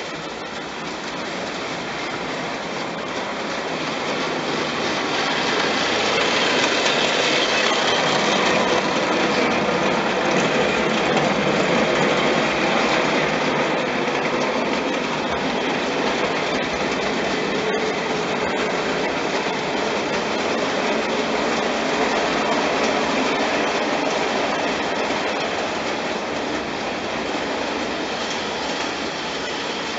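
Märklin gauge 1 HR Pacific model locomotive and its two cars running on metal track, a steady rolling clatter of wheels on the rails. It grows louder as the train comes close, about a fifth of the way in, then slowly fades as it runs on.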